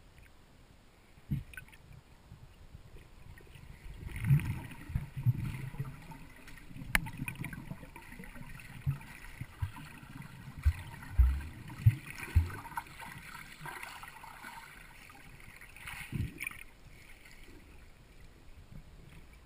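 Muffled underwater sound of a swimmer moving in lake water, picked up by a submerged camera: sloshing and bubbling with scattered low thumps and a cluster of sharp low knocks around the middle.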